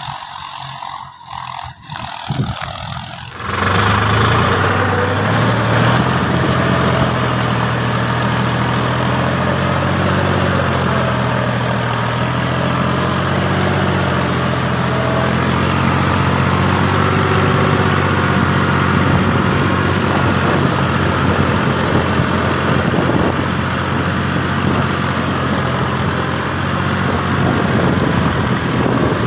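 Solis 4415 two-wheel-drive tractor's diesel engine running steadily while pulling a cultivator through dry soil. It gets markedly louder about three and a half seconds in, then holds an even, low drone.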